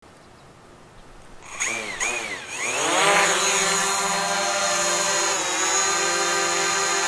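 DJI Mavic Pro quadcopter motors and propellers winding up with wavering pitch glides, then settling into a steady, many-toned hovering whine from about three seconds in.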